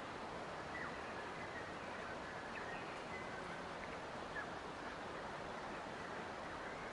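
Steady, even hiss of outdoor nature ambience with a few faint, short bird chirps scattered through it.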